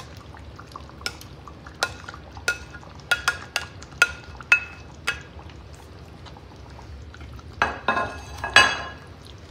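Spatula scraping sautéed mushrooms off a cutting board into a cast-iron skillet: a run of sharp taps and clicks with a short ring over the first few seconds, then two longer scrapes as the mushrooms are spread over the chicken and sauce near the end.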